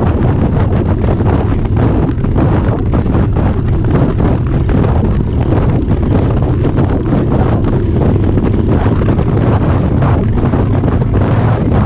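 Wind buffeting the microphone of a Harley-Davidson motorcycle riding at steady road speed, over the steady low rumble of its engine.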